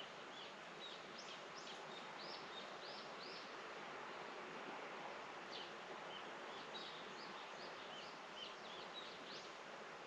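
Rural outdoor morning ambience: small birds chirping in quick runs of short high notes over a steady background hiss.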